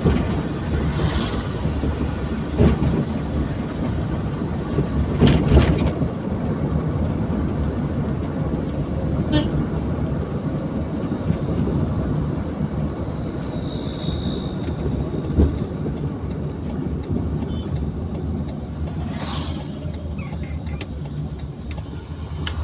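Steady low rumble of a car's engine and tyres on the road, heard from inside the cabin while driving, with a few short knocks. Other vehicles pass the other way, once about a second in and again near the end.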